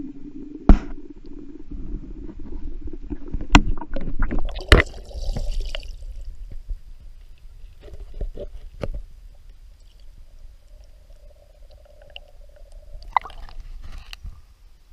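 Muffled creek water heard through a submerged underwater camera: a low rumble with a faint hum, broken by a few sharp knocks as the camera housing bumps about. Near the end come a burst of knocks and splashing as the camera is lifted out of the water.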